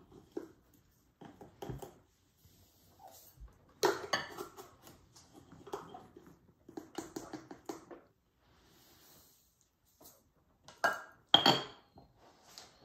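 A plastic measuring cup scooping and scraping sugar in a sugar canister, in several short bouts of scraping and knocking, with two louder clinks near the end.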